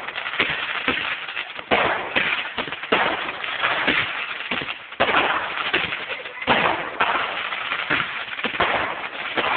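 Fireworks going off in a dense barrage: many sharp bangs and crackles overlapping without a break, with heavier booms about two, five and six and a half seconds in.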